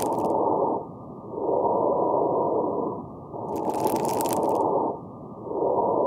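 Auscultated lung sounds with fine crackles (rales): breath sounds swell and fade with each breath, with brief high-pitched crackling pops late in inspiration. They are the sign of collapsed small airways (bronchioles, alveoli) snapping open as air comes in.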